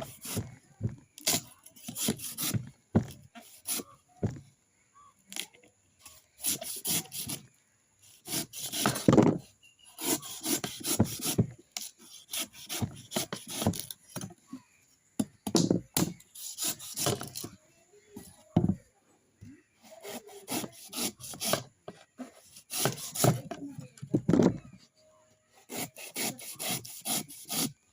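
Coconut being scraped with rough, rasping strokes, coming in runs of quick strokes with short pauses between.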